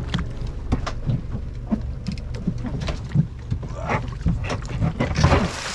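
Small fishing boat's engine running at low speed, a steady low hum, with irregular knocks and splashes of water against the hull.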